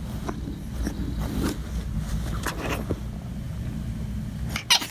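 Puppy squirming on a blanket: soft rustling and scraping of fabric over a steady low rumble, with one short sharp sound near the end.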